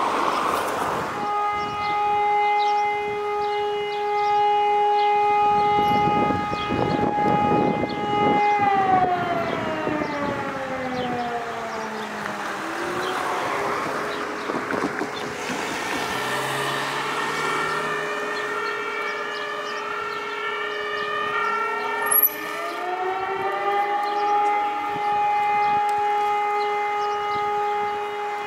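Alarm siren sounding a steady tone that winds down after about eight seconds, falls away, and winds back up to the same steady tone near the end. This is the pattern of a siren alarm calling out the fire brigade and disaster-protection units.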